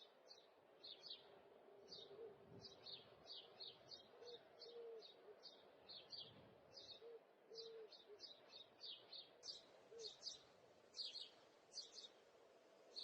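Small birds chirping faintly in short, repeated chirps, about two a second, with a few soft low coos underneath.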